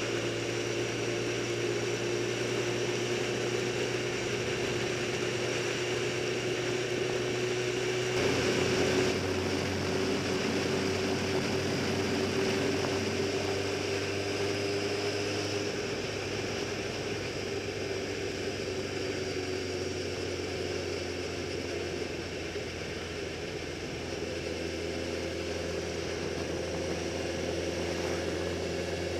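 Motorcycle engine running steadily at cruising speed, heard from on the bike itself, its note drifting slowly up and down. The engine note shifts abruptly about eight seconds in and again around the middle.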